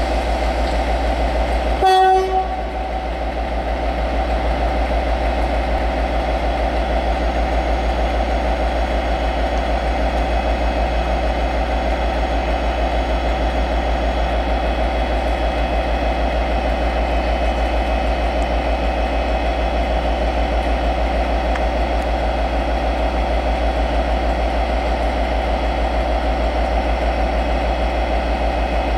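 Class 57 diesel locomotive's EMD two-stroke V12 running with a steady low drone, and one short single-note horn blast about two seconds in.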